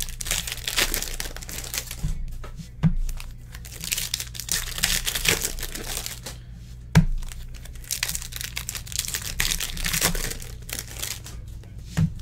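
Foil football-card packs being crinkled and torn open by hand, with a few sharp knocks, the loudest about halfway through.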